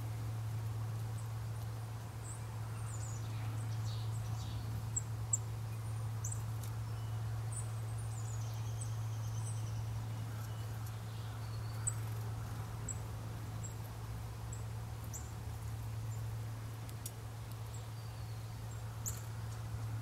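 Outdoor bird ambience: scattered short, high bird chirps and thin calls over a steady low hum.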